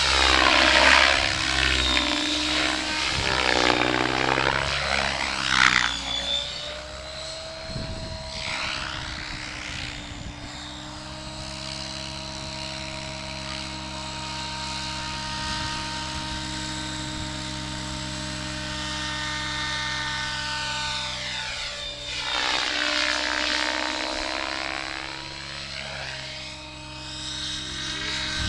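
Radio-controlled helicopter in flight: a steady rotor and drive whine with a sweeping, phasing swish as it moves about. It is louder in the first few seconds and again about three-quarters of the way through, as it passes closer.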